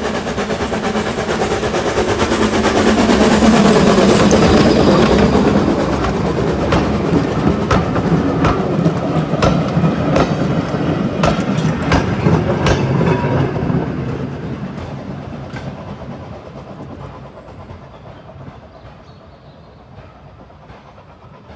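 Steam tank locomotive passing at close range with its train, its running loudest about four seconds in. Then the carriages roll by with their wheels clicking over the rail joints in quick pairs, the sound fading away as the train draws off.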